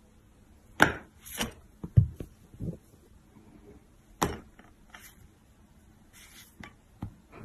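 A cat batting at a pen on open notebooks on a tabletop: scattered sharp taps and knocks, the loudest about one and two seconds in, with a short rustle about six seconds in.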